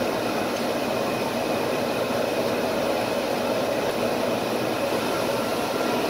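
Steady whir of shop machinery running, an even mechanical noise with a faint high whine in it.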